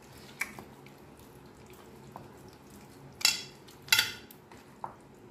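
Hands rubbing salt and lemon juice into a raw, skinned whole chicken on a steel plate: soft wet squelches of flesh, with two louder sharp wet smacks a little past the middle, about a second apart.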